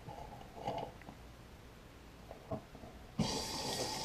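Bathroom faucet with its aerator removed turned on suddenly about three seconds in, water pouring in an open stream into the sink basin. The new faucet is being run to flush out debris left in its lines. A few faint clicks come before it.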